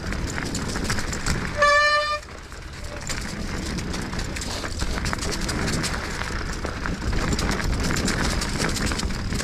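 Mountain bike rolling over a snowy dirt trail, with steady tyre and rattling noise. About a second and a half in comes one short, loud, steady squeal from the brakes, and the rolling noise drops for a moment after it as the bike slows.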